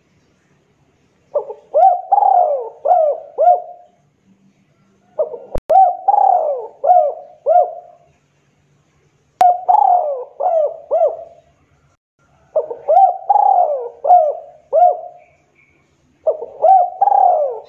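Spotted dove cooing in five repeated phrases a few seconds apart. Each phrase is a quick run of four or five coos lasting about two seconds.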